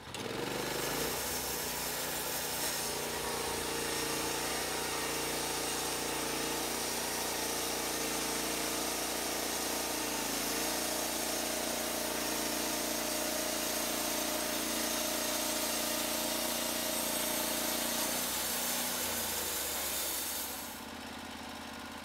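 Norwood LumberPro HD36 portable band sawmill cutting through a log, its engine running steadily under the hiss of the band blade in the wood. About a second before the end the cutting noise stops, leaving a quieter engine drone.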